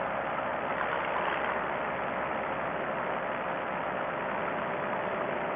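Two-stroke paramotor engine and propeller running steadily in flight, an even drone with a faint steady tone and no change in speed.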